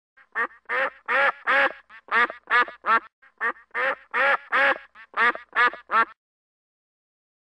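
A duck quacking in a quick series of short calls, about two or three a second, stopping about six seconds in.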